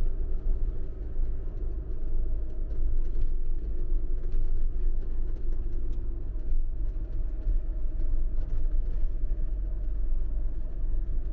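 Campervan driving on the road: a steady low rumble of engine and tyre noise, with a faint hum over it.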